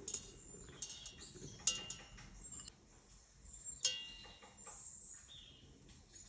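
Kitchenware clinking: two sharp ringing clinks about two seconds apart, among light rustling and tapping.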